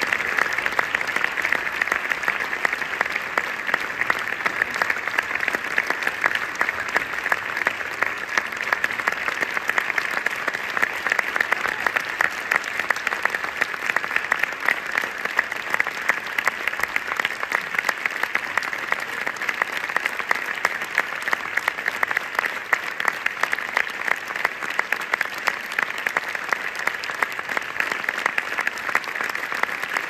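Theatre audience applauding a curtain call: dense, continuous hand clapping that keeps an even level throughout.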